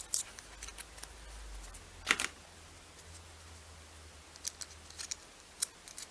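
Small plastic clicks and taps from a microSD card, its SD adapter and clear plastic case being handled, with one sharper click about two seconds in and a few lighter ones near the end.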